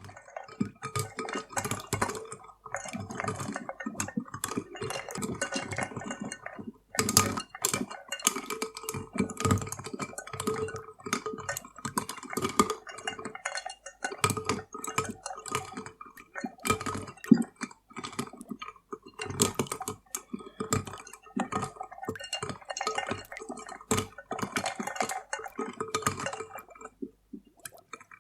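Ice cubes clinking in a drink, then from about seven seconds in the drink being stirred, the ice knocking about in quick, irregular clinks that grow louder.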